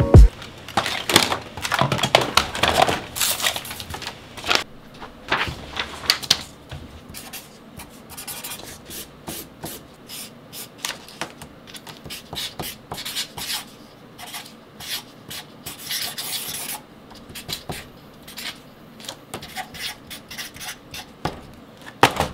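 Marker pen scribbling on a spiral notepad page in many short, quick strokes. There is a sharp knock right at the start and another near the end.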